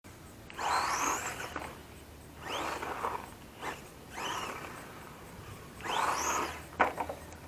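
RC monster truck with a Racerstar 3650 sensorless brushless motor, accelerating in four bursts, each starting with a rising high-pitched whine. A sharp click comes near the end.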